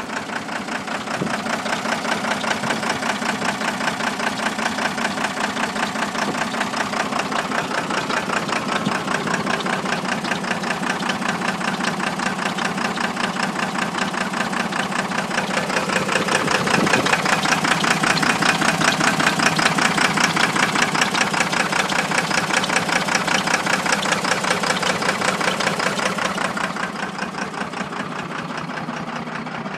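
1993 first-gen Cummins 5.9-litre inline-six turbo diesel running with an uneven, knocking pulse: a dead miss on cylinder 2, caused by a blown head gasket with a hole between cylinders 1 and 2. It gets louder about halfway through and settles back down near the end.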